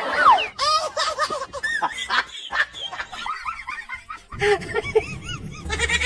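Laughter, in quick repeated rising and falling peals that come and go, with a falling, sliding tone right at the start.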